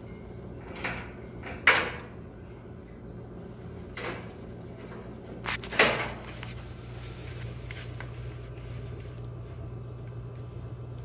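Sharp metallic knocks and clunks from hands and tools working at the gas valve and burner assembly in the base of a gas dryer, the two loudest close to two seconds in and near six seconds in, over a steady low hum.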